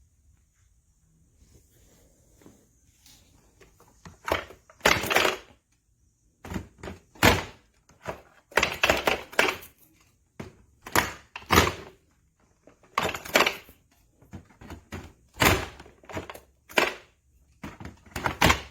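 Irregular knocks and clatters, about a dozen loud ones starting about four seconds in, from the plastic parts of a Eureka PowerSpeed bagless upright vacuum cleaner being handled.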